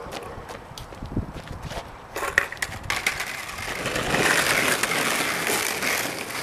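Skateboard wheels rolling over rough asphalt. The rolling rumble builds from about two seconds in as the boards come close, with a sharp clack just after it starts, and is loudest around four to five seconds in.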